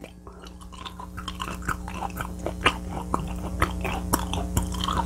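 Close-up chewing of raw beef dipped in egg yolk: many small wet clicks and smacks of the mouth, getting gradually louder, over a steady low hum.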